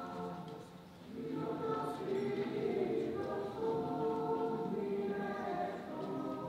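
School choir singing long held notes together, dropping away briefly just before a second in and then coming back in.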